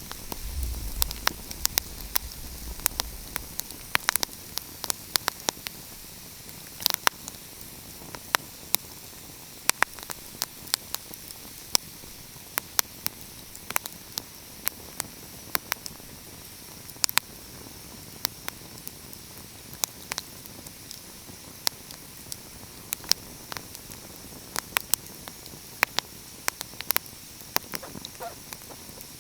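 Wood fire crackling: irregular sharp pops and snaps over a steady hiss, with a low rumble in the first few seconds.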